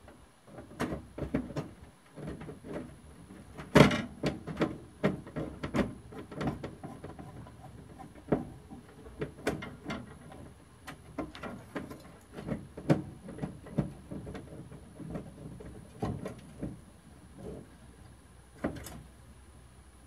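Irregular metallic clinks and knocks as the heating element of a Masterbuilt electric smoker is handled and screwed into its back plate from behind the cabinet. The loudest knock comes about four seconds in.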